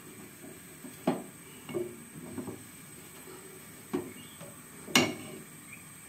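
A spoon knocking against the side of a cooking pot while rice-flour porridge is stirred: a handful of short, sharp knocks, the loudest about a second in and near the end.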